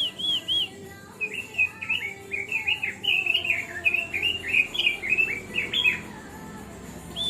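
Pekin robin singing: a few quick repeated arching whistled notes, then from about a second in a fast, varied warble lasting about five seconds, which breaks off near the end.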